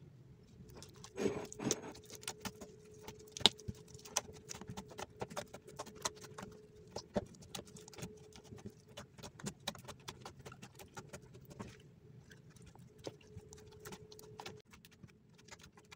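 Sticky gum slime squished, pressed and pulled apart between fingers, giving a stream of irregular wet clicks and pops, busiest about a second in. A faint steady hum runs underneath.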